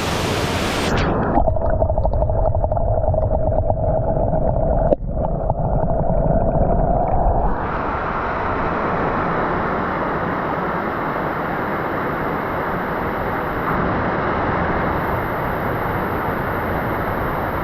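Steady rush of falling water, heard dull and muffled for the first several seconds, with a low hum and one sharp knock about five seconds in. It then opens back up into a full, bright hiss.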